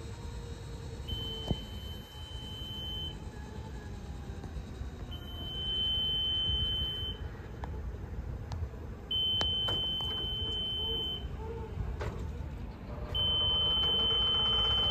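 Warning beeper of a 2016 Haulotte 5533A towable electric boom lift sounding while the boom is swung and lowered: four long, high-pitched beeps of about two seconds each, one every four seconds, over a steady low noise.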